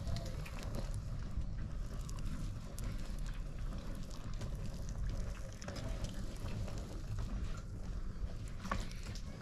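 Potter's wheel turning while wet hands shape a large clay bowl: a steady low rumble with scattered small clicks and wet sounds of hands on clay.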